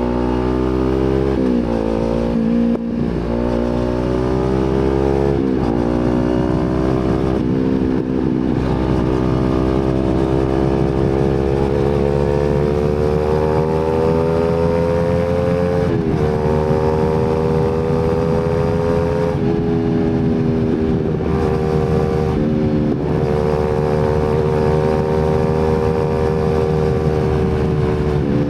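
Kawasaki Z250 motorcycle engine through an aftermarket slip-on exhaust, accelerating through the gears: the exhaust note climbs in pitch and drops sharply at each upshift, several quick shifts at first, then longer pulls and a near-steady cruising note.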